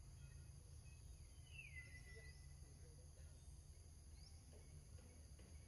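Near silence with a faint, steady high-pitched drone of insects such as crickets and a low background rumble. A single short whistle glides down in pitch about a second and a half in.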